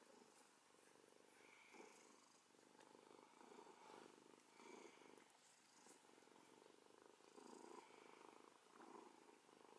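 Domestic cat purring faintly while its head and chin are scratched by hand. The purr swells and fades in slow waves, roughly once a second.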